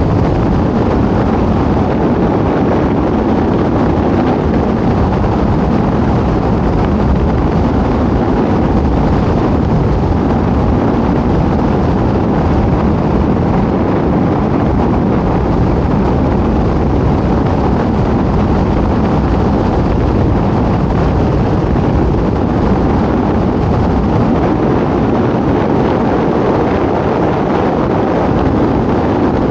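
A car driving at a steady speed: an even, loud rush of road and wind noise that holds the same level throughout.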